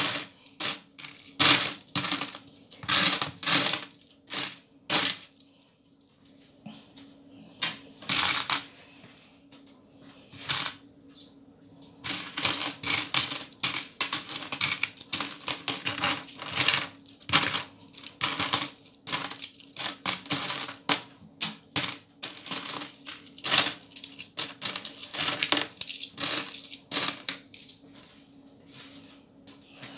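A heap of loose coins clinking and jingling in a plastic tray as hands rake through them and pick them out. The clinks come in quick irregular clusters, thin out for a few seconds about six seconds in, then come thick again.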